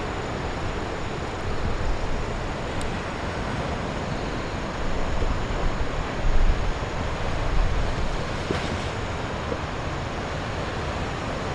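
Heavy typhoon surf breaking continuously along the shore, a deep steady wash of water that swells louder a few times, with wind buffeting the microphone.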